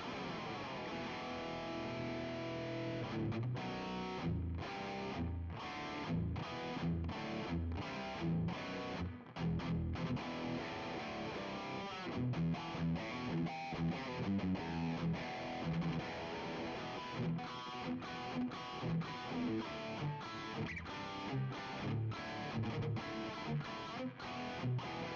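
Distorted electric guitar playing rhythm chords through a Valeton GP-5 multi-effects processor, the chords cut off by frequent short stops in a rhythmic pattern.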